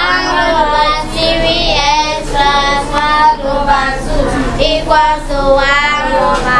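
A class of children reading a maths question aloud in unison, in a drawn-out, sing-song chant.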